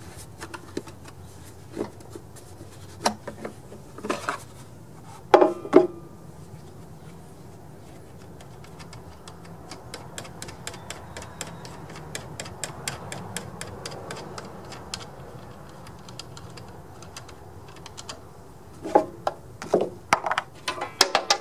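Clicks and knocks of the air cleaner cover being unfastened and lifted off a riding mower's engine. A long run of quick, light ticks comes in the middle, and louder clatter near the end.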